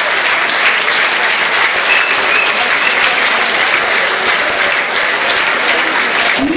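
Large crowd of fans applauding, many hands clapping steadily.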